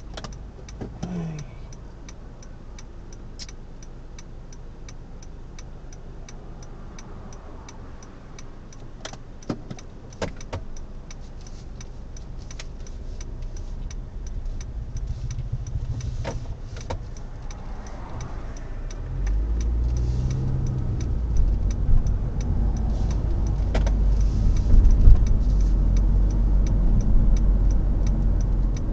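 Inside a car: the indicator relay ticks steadily at about three ticks a second over a quiet idle. About two-thirds of the way through, the car pulls away and engine and road rumble grows much louder.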